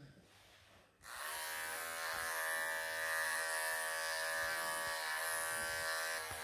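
Cordless electric pet clippers switch on about a second in and run with a steady buzz as they shear through a Maine Coon's long fur.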